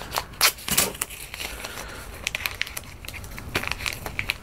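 Adhesive tape being handled on a guitar body, pulled, pressed down and crinkled by hand, giving an irregular run of sharp crackles and ticks.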